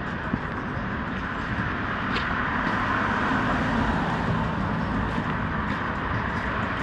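Steady noise of city street traffic, vehicles passing on the road.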